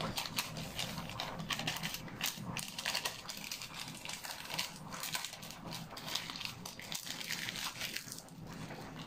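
A wire whisk clicking and scraping against a plastic mixing bowl in quick, irregular strokes as flour is beaten into cake batter.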